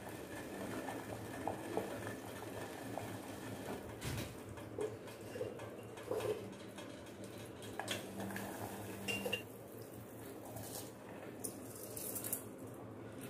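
Scattered clinks and knocks of metal kitchenware over the faint bubbling of water heating in a stainless steel pot on a gas stove.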